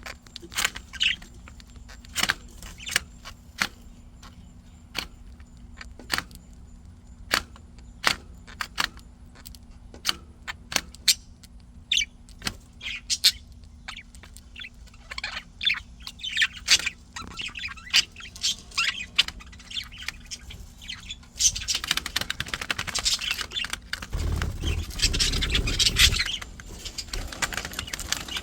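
Budgerigars chirping and chattering among many sharp clicks and taps. The chirps are scattered at first, then become a dense, continuous warble about three quarters of the way in.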